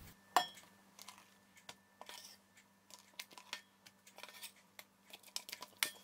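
Faint, scattered clicks and light taps of a utensil against a metal mixing bowl and a glass baking dish as thick cream is scooped out and dropped in dollops.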